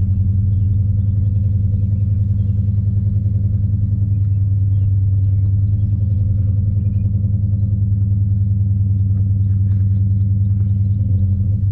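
2018 Dodge Challenger R/T Scat Pack's 6.4-litre HEMI V8 idling steadily through its Flowmaster exhaust, warming up after a cold start.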